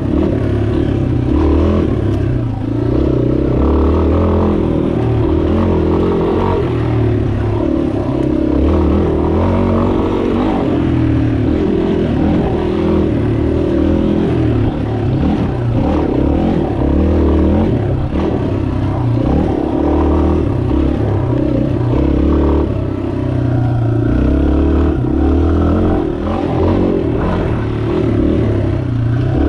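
2019 Yamaha XT250's air-cooled single-cylinder four-stroke engine running on a dirt trail ride, its note rising and falling with the throttle.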